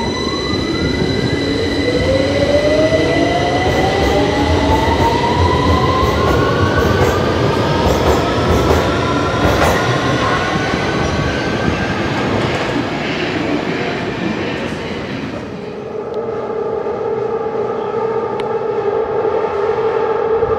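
Victoria line 2009 Stock Tube train accelerating away from the platform: a rising whine from the traction motors over a loud rumble of wheels on rail, fading after about fifteen seconds. A steady hum of several tones follows near the end.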